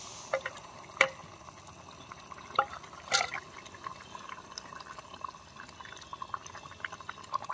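Fish curry gravy boiling in a camping pot on a portable gas stove, bubbling and popping all through. A few sharp knocks of cookware come about a second in and around the three-second mark as fried fish is tipped in and stirred.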